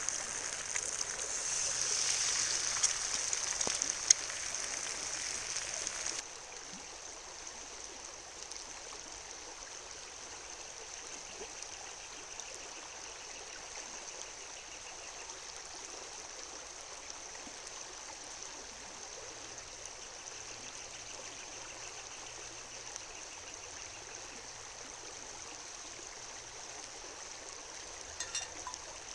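A river flowing steadily. The first six seconds are louder, then the sound drops suddenly.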